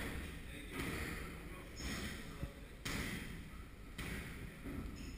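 A person doing a burpee and jumping up to a pull-up bar: a few soft thuds of hands, body and feet on the gym floor, over a steady background hiss.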